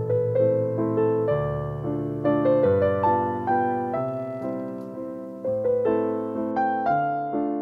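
Gentle background piano music: a slow melody of struck notes, each fading away, over low held chords.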